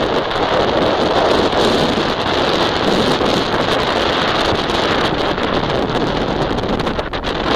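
Wind rushing over the microphone of a camera mounted on a moving motorcycle, with the motorcycle running steadily underneath.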